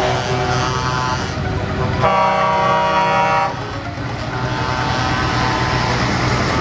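Truck air horns sounding as heavy trucks drive by: a loud horn blast about two seconds in, held for about a second and a half, with shorter horn notes before it and fainter ones after, over the steady running of truck diesel engines.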